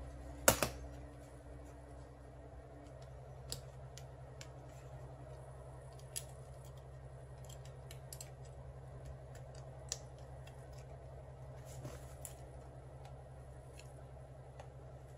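Small scattered clicks and scrapes of a screwdriver and gloved hands working on the disassembled motor parts of a Keyang DDH-1801L 18V cordless hammer drill, with one sharp click about half a second in.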